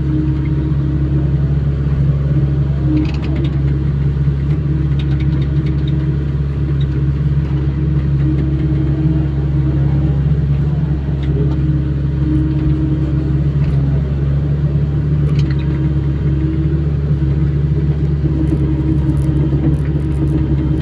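Hydraulic excavator's diesel engine running steadily at a constant pitch, heard from inside the operator's cab, with a few faint clicks on top.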